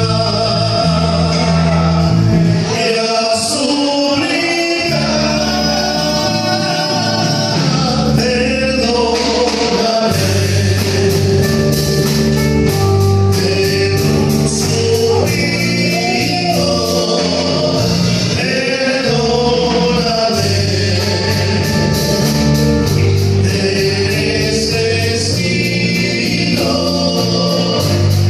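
Live band playing a slow romantic song with sung vocals over bass and keyboard-like chords. Steady, even percussion ticks join about ten seconds in.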